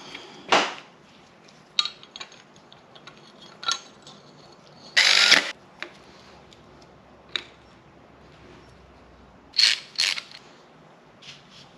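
Metal parts and hand tools being handled at the front of an LS V8 block as the timing chain and cam gear go on: scattered light clicks and clinks, a half-second rattle about five seconds in, and two louder clinks near the end.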